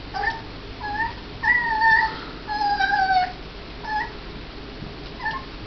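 Puppy whining in a run of short, high-pitched whimpers, with two longer drawn-out ones in the middle, the second falling in pitch. He is fretting over a piece of chicken.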